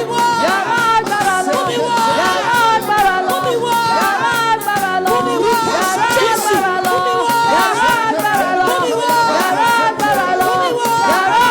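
Music: singing over a quick steady beat of drums and shakers.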